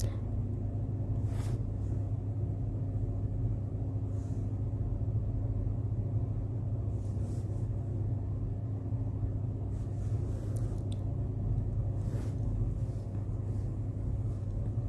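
Onion gravy boiling in a pan covered with a glass lid on the stove: a steady low rumble with a few faint pops and ticks scattered through it.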